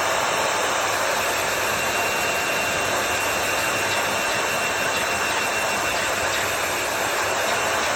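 Hairdryer running steadily, blowing a loud, even rush of air, with a faint thin whine through the middle.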